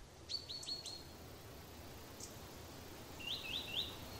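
Faint bird chirps over a quiet background hiss: a quick run of four short high chirps about half a second in, and a run of three slightly lower chirps near the end.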